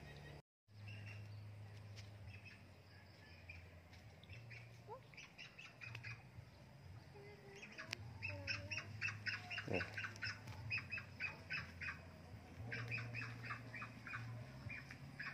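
A bird squawking in quick runs of short, repeated calls, about five a second, starting about eight seconds in.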